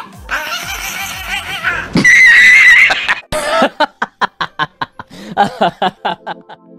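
A loud, shrill wavering cry lasting about a second, then a run of quick laughing bursts, about five a second, fading away near the end.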